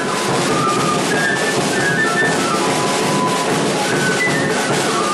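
Music at a steady level: a high melody of short held notes, whistle-like, over a full accompaniment.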